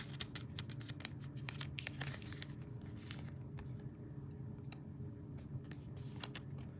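Clear plastic card sleeve crinkling and rustling as a trading card is slid into it, with many small clicks and scrapes of plastic and card stock.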